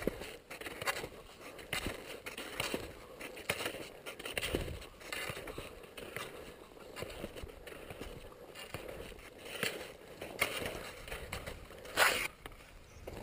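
Touring skis sliding and crunching over snow in a steady stride, a scrape about every second, with poles planting, then a single sharp knock about twelve seconds in.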